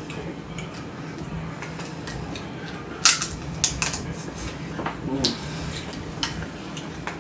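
Sharp cracks and clicks of crab shells being broken open for eating from a seafood boil, with a cluster of loud snaps about three to four seconds in.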